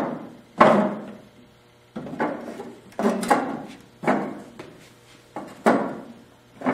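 Wooden knocks and clunks as carpet-covered 1x8 boards with 2x4 cleats are set onto wooden sawhorses and fitted in place: about eight sharp knocks, each ringing briefly, the loudest about half a second in.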